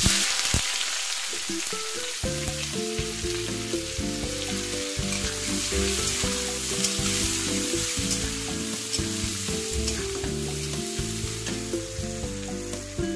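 Sliced onions sizzling in hot oil in a steel kadai, the sizzle starting suddenly as they go into the oil, with a steel spatula stirring and scraping against the pan.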